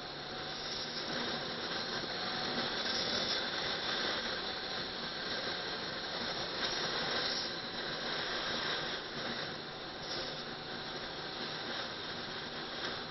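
Motorbike ridden over a rough dirt track, heard through an action camera mounted on the bike. A steady rushing noise of wind and road, with rattling and a faint engine drone underneath.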